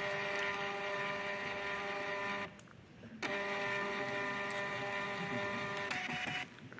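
Contec ECG 300G electrocardiograph's built-in thermal printer running as it prints the ECG tracing, a steady mechanical whine from its paper feed. The whine breaks off for under a second midway, starts again, and stops near the end.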